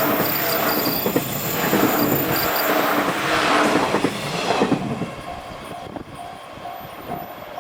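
A train running past at a level crossing, a loud rush and clatter of wheels on rail that falls away about five seconds in. After it, the crossing's warning bell goes on ringing in even, repeated dings, about two or three a second.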